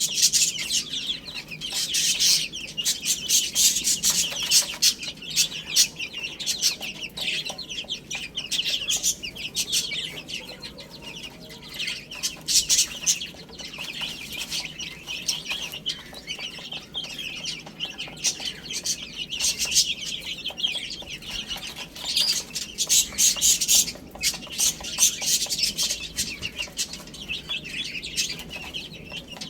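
A group of baby chicks peeping together in rapid, overlapping high-pitched chirps that swell louder and ease off in spells.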